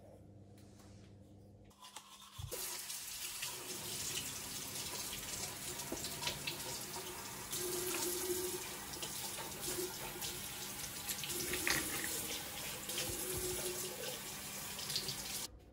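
Bathroom tap running into a washbasin while hands scoop and splash the water onto a face. The water comes on about two and a half seconds in and shuts off suddenly just before the end.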